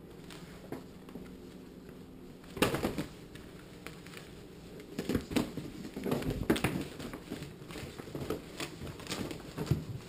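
Rustling, scuffing and light knocks as a motorcycle riding vest is picked up and handled, starting suddenly about two and a half seconds in and going on in irregular bursts. Before that only a faint steady hum.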